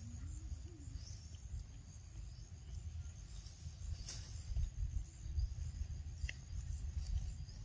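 Outdoor ambience: insects trilling steadily over a low rumble, with one sharp click about four seconds in and a brief faint chirp a little after six seconds.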